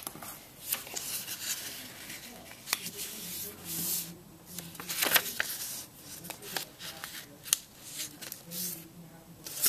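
A square of origami paper being folded by hand on a desk: paper rustling and sliding, with a few sharp crisp clicks as creases are pressed in.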